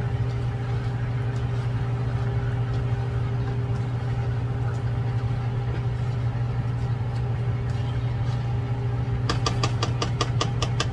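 A steady low mechanical hum, with a quick run of sharp clicks near the end as a plastic spatula taps and scrapes the nonstick frying pan while the chicken is stirred.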